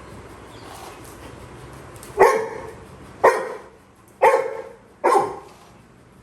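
Labrador retriever puppy barking four times, about once a second, starting about two seconds in.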